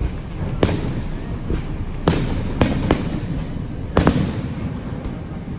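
Fireworks going off: about six sharp bangs at uneven intervals, each with a short echoing tail, over a steady low rumble.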